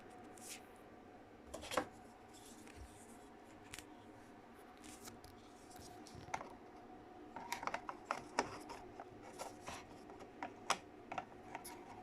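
Clicks and taps of a Mercedes Vito W639 electronic ignition switch and its key being handled during a powered bench test: one sharp click about two seconds in, then a quick flurry of clicks and taps in the second half, over a faint steady hum.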